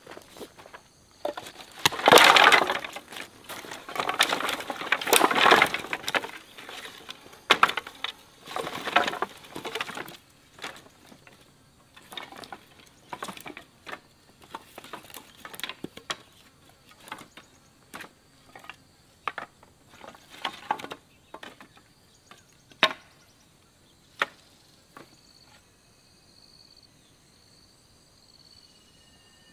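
Dry firewood being dropped and broken up by hand: loud crashing and rustling in the first few seconds, then a long run of separate snaps and cracks that thin out after about 24 s. A faint, evenly pulsing insect chirring is left near the end.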